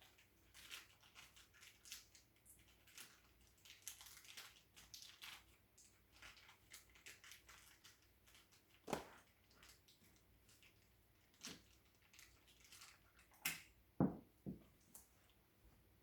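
Faint handling sounds of office-chair parts as the back plate is test-fitted: light scraping and rustling with scattered small clicks, and a few sharper knocks, the loudest pair near the end.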